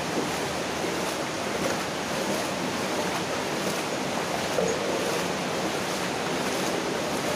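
Steady rush of water running through a drainage culvert pipe, heard from inside the pipe.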